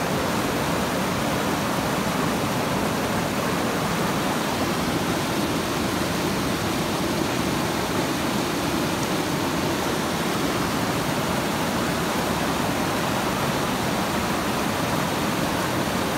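River water rushing over a shallow riffle: a steady, even rush with no breaks.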